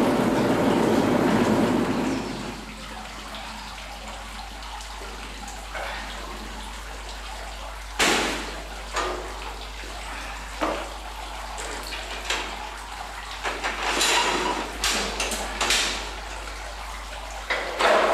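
A steady machine noise that stops about two and a half seconds in, followed by a series of sharp knocks and clunks as the slatted drum and fittings of a horizontal grape press are handled: the loudest about eight seconds in, several more close together near the end.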